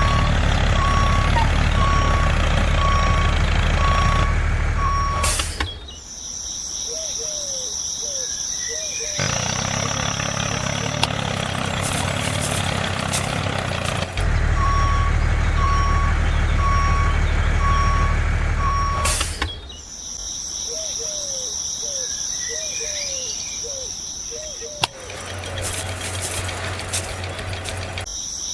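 A vehicle's reversing alarm beeping evenly, about two beeps a second, over a low engine rumble. It is broken twice by sudden cuts to a steady high insect chirr with small repeated calls.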